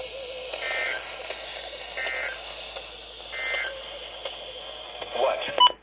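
NOAA weather radio receiver hissing, with three short warbling data bursts about a second and a half apart. This is the SAME end-of-message code that closes a weather alert broadcast. Near the end there is a click and a short beep, and the audio cuts off.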